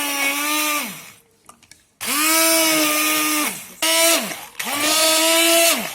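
Electric blender puréeing cooked vegetables, run in short pulses: a loud motor whine that starts and stops about four times, its pitch sliding down each time it cuts off.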